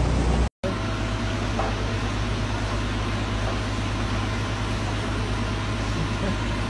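An engine running steadily, an even low hum under a wash of noise. The sound drops out for a moment about half a second in, then the hum carries on.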